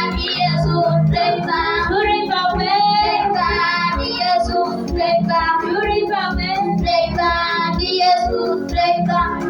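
A child singing a praise song over backing music with a steady low beat.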